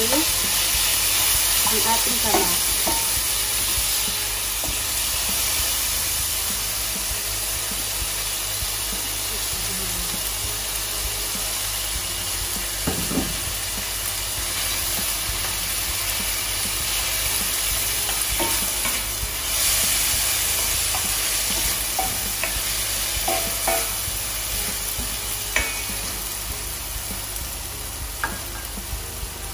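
Chopped tomatoes and onions sizzling steadily as they sauté in oil in a stainless steel frying pan, with a few short knocks of a plastic spoon against the pan as they are stirred.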